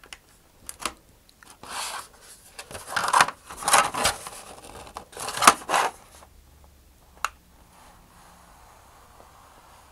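Hobby knife blade scoring thin vacuum-formed plastic: a run of scratchy scraping strokes of uneven length, then one sharp click about seven seconds in.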